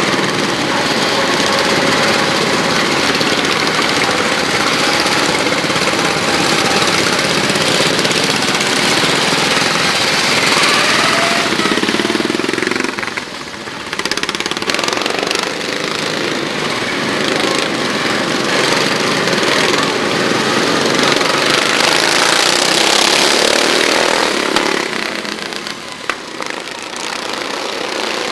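Racing lawn mowers' small engines running hard, a loud continuous engine racket that eases off briefly about halfway through and again near the end.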